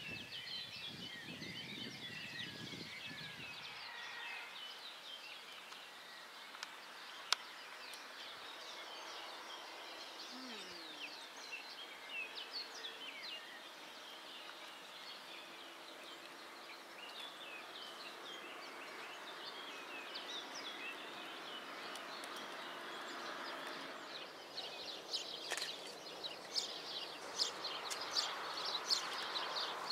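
Small birds chirping, a steady stream of short high calls that gets busier near the end, with one sharp click about seven seconds in.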